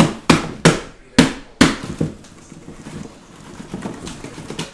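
A cardboard shipping case being opened and handled, with shrink-wrapped hobby boxes inside: about six sharp knocks and thuds in the first two seconds, then softer rustling and shuffling.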